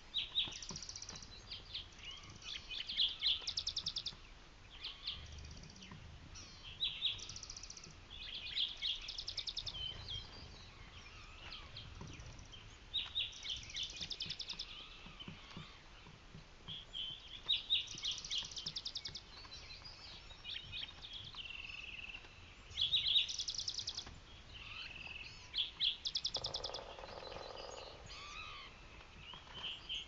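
Songbirds singing in a morning chorus: short songs and rapid trills follow one another every second or two, sometimes overlapping.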